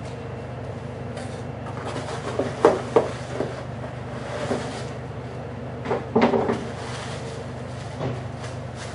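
Cardboard box and its packing being rummaged through by hand: scattered rustles and a few sharp knocks, the loudest pairs about a third of the way in and again past the middle, over a steady low room hum.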